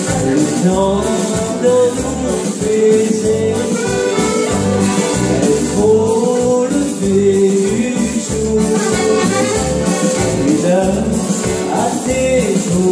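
Chromatic button accordion played over a backing track with a steady dance beat, with a man singing through a headset microphone.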